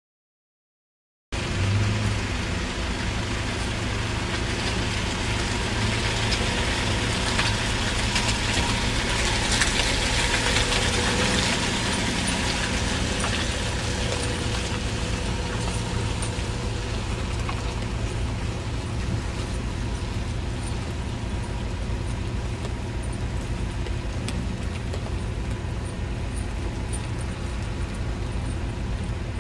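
Silent for about the first second, then a front-wheel-drive panel van on snow chains driving through deep mud: its engine runs steadily under load, mixed with a haze of tyre and mud noise.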